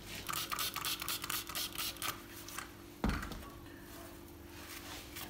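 Quick back-and-forth scrubbing of a stove's glass door with the wire scouring side of a dish sponge, several strokes in a row, then a single knock about three seconds in.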